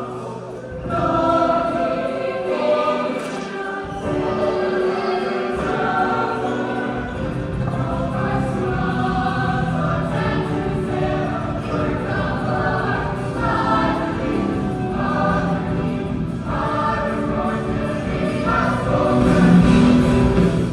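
Choir singing a song with instrumental accompaniment; the low end of the accompaniment fills in about seven seconds in.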